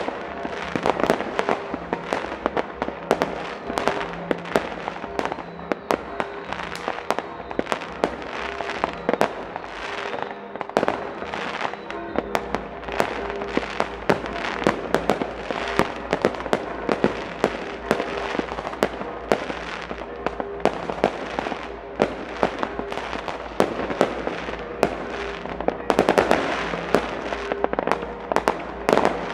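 Many New Year's Eve fireworks and firecrackers going off around town: a constant rapid series of bangs and crackling, with louder volleys near the end. A faint steady pitched ringing sits underneath throughout.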